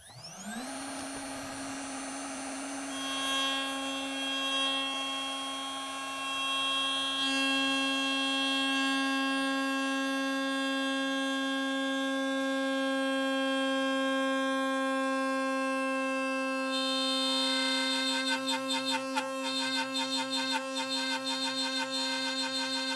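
CNC router spindle spinning up with a quick rising whine, then running at a steady high whine. About 17 seconds in, the sound turns choppy and fluttering as the cheap Harbor Freight Warrior straight bit starts cutting a slot into the wood.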